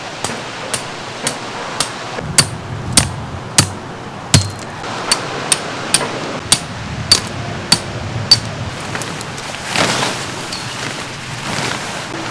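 Tent pegs being hammered into the ground: about fifteen sharp, ringing strikes, roughly two a second, that stop about eight seconds in. A short rustle follows near the end.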